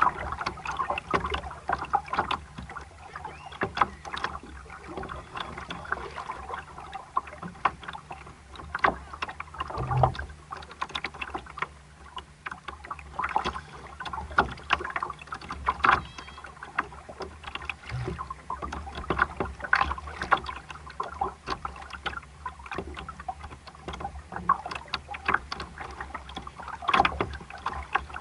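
Water slapping and splashing against the hull of a small sailboat under way, in irregular short splashes and knocks over a low steady rumble.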